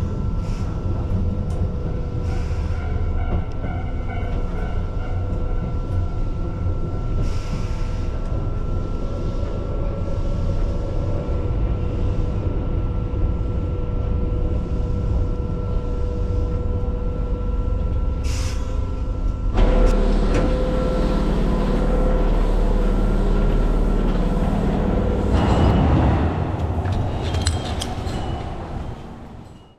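Keihan local train heard from inside the car, running along with a steady rumble and a steady hum. About two-thirds of the way through the hum stops and the rumble gets louder and deeper. The sound fades out near the end.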